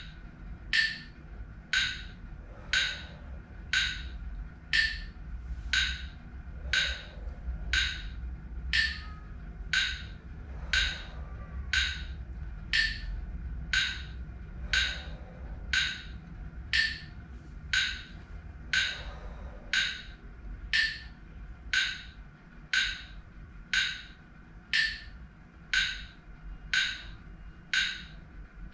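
A phone metronome app clicking steadily, about once a second, pacing Wim Hof breathing.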